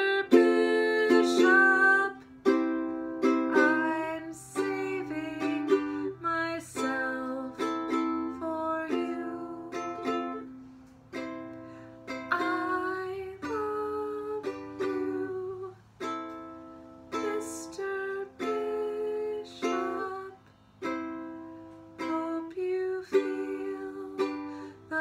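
Ukulele strummed in changing chords, with a woman singing over it.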